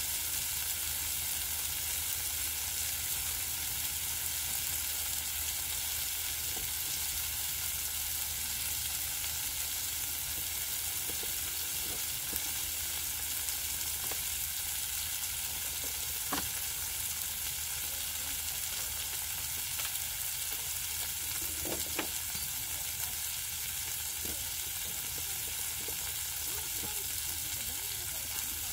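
Pork belly and kimchi frying on a black griddle pan, with a steady sizzle and a few short pops about halfway through.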